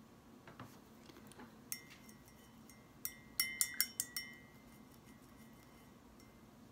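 A cluster of quick, sharp clinks about three to four seconds in, with a short ringing tone under them, after a few lighter ticks: a paintbrush tapping against the glass water jar used for rinsing brushes.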